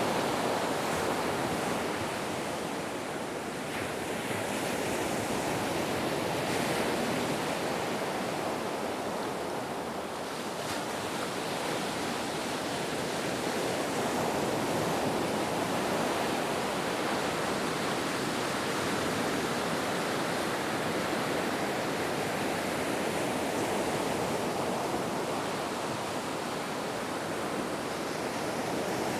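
Ocean waves washing ashore in a continuous surf roar, swelling and easing gently every several seconds.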